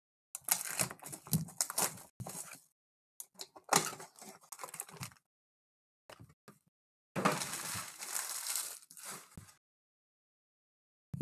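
Foil trading-card pack wrappers being torn open and crinkled, in four bursts of one to two seconds each.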